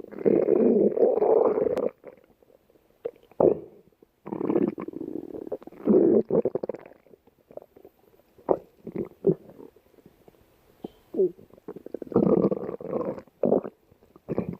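A stomach growling loudly in irregular gurgling rumbles. A long rumble at the start is followed by shorter bursts and quick gurgles with brief quiet gaps between them.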